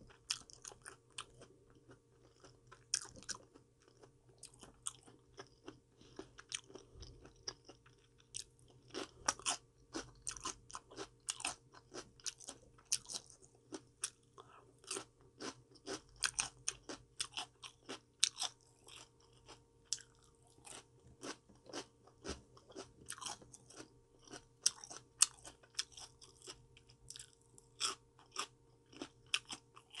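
A person chewing mouthfuls of crisp raw vegetables and fruit close to the microphone: a steady, irregular run of sharp crunches that grows denser about a third of the way in.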